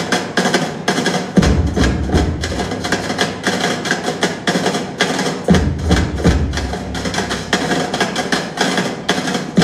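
Student percussion ensemble playing a fast, dense rhythm on djembes, with a drum kit and sticks on metal drums. Heavy low booming strokes come in about a second and a half in and again around six seconds.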